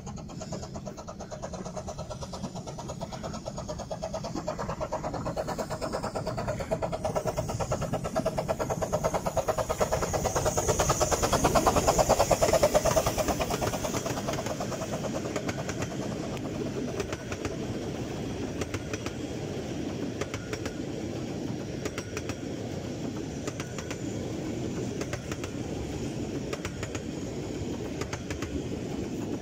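Romney, Hythe & Dymchurch Railway's No. 1 Green Goddess, a 15-inch gauge 4-6-2 steam locomotive, approaching and passing close by with a rhythmic working beat. It is loudest as the engine goes by about 12 seconds in. After that, its train of coaches rolls past steadily on the rails.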